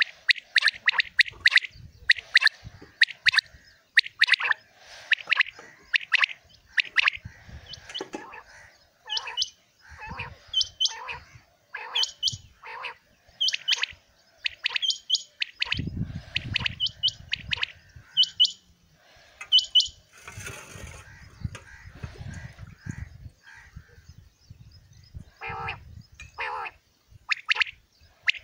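Common quail calling from inside cloth-covered cages: short, sharp calls repeated in quick runs, with a brief pause near the end. A low rumble sits underneath through the middle stretch.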